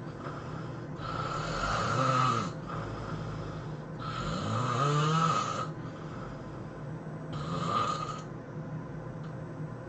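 A man snoring: three loud snores roughly three seconds apart, each lasting a second or so, the last one shorter and weaker.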